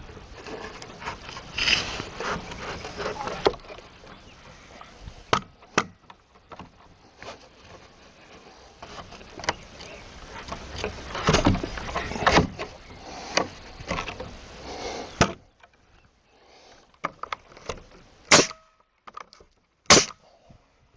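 Hand work on a wooden gate: irregular knocks, taps and scraping of wood and tools, then two sharp clicks near the end.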